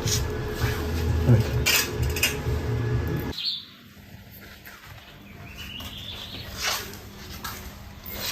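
Generator engine running with a steady low hum and scattered clinks, cutting off abruptly a little over three seconds in. Quieter clinks and a faint slowly rising tone follow.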